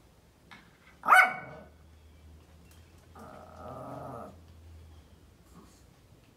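Pomeranian barking: one sharp, loud bark about a second in, then a drawn-out lower call lasting about a second.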